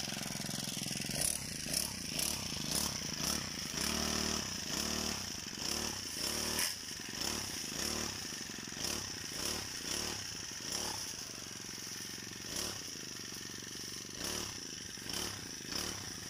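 Small two-stroke brush cutter engine running steadily, with a string of short rustling knocks about every half second to second.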